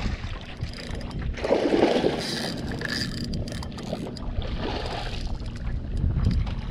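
Water splashing beside a small skiff as a hooked little lemon shark thrashes at the surface, with the loudest splash about a second and a half in.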